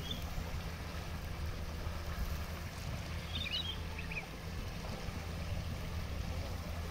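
Shallow river rushing steadily over stones, with a few short high bird chirps about three and a half seconds in.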